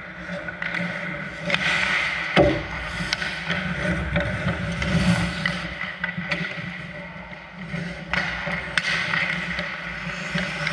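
Ice hockey play: skates scraping across the ice, with sharp clacks of sticks and puck and one heavier thump about two and a half seconds in.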